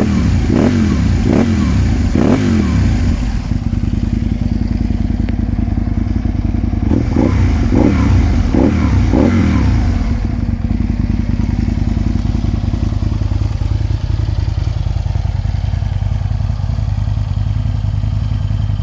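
Aprilia Tuono 1000R's 998 cc V-twin engine idling, blipped with several quick rises and falls in revs in the first three seconds and again from about seven to nine seconds in, then settling to a steady idle.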